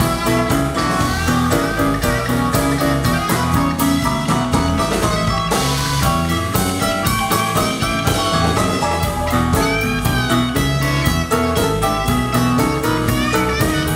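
Live blues band playing: an electric guitar leads with bent notes over a steady drum-kit beat, with no singing.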